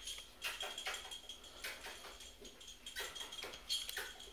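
Irregular light clicks and taps of plastic hair clippers being handled and their switch tried, with no motor running: the clippers don't start because the plug is not properly in the wall socket.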